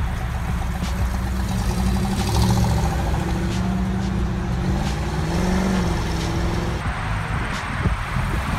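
Classic Dodge Challenger muscle car pulling away and accelerating, its exhaust note rising in pitch as it goes up through the revs, then dropping back. The sound changes about seven seconds in as another car's engine takes over.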